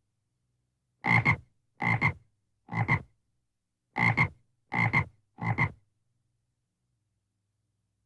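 Frog croaking: six short croaks, each made of two quick pulses, spaced under a second apart, then it falls silent about six seconds in.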